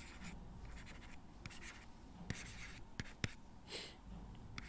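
Faint handwriting with a stylus on a digital writing surface: short scratchy pen strokes, with a few sharp clicks as the tip taps down between strokes.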